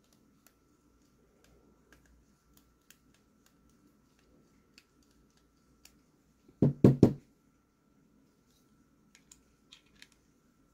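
Small scattered clicks of a stubby screwdriver turning body screws out of a folding knife's handle. A quick run of about four loud knocks comes about seven seconds in.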